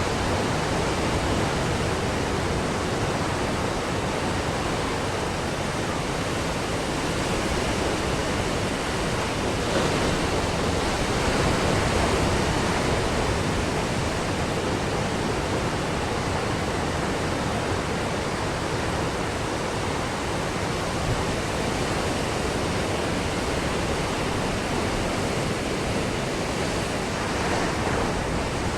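Ocean waves breaking on a beach: a steady, dense wash of surf that swells slightly about ten seconds in and again near the end.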